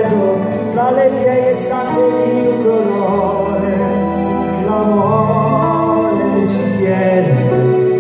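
Slow acoustic song on accordion and two acoustic guitars, with a man's voice holding long wordless notes with vibrato.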